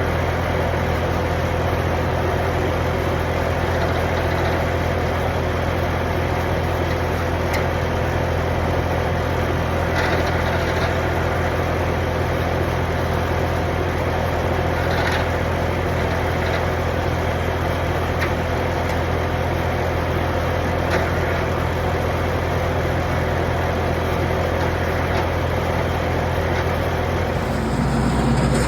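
An engine running steadily at idle, with a few faint clicks over it; its tone shifts shortly before the end.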